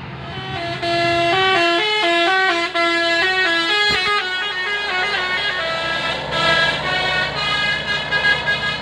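Bus telolet basuri horn playing a quick melody of stepped notes, each held a fraction of a second, over the low hum of the bus's engine running.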